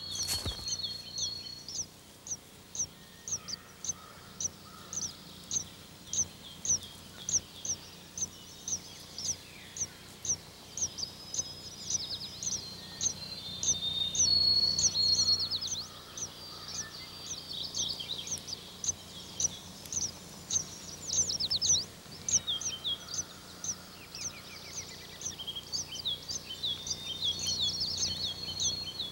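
Yellow warblers at the nest: a long run of short, high chirps, about two a second, with a few longer thin steady whistles now and then, over a faint low hum.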